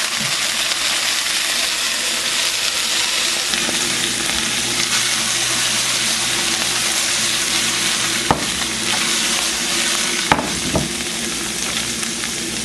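Onion, shrimp, scallops and chicken liver sizzling steadily in hot coconut oil in a frying pan as they are stirred, with two sharp knocks in the last few seconds.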